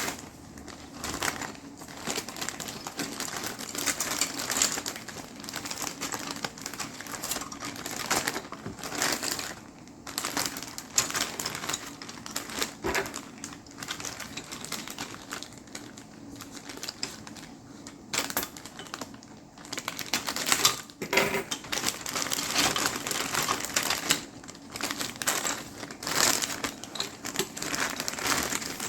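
Thin plastic parts bags crinkling, with small plastic model-kit parts clicking and rattling as they are handled, in an uneven run of crackles and clicks.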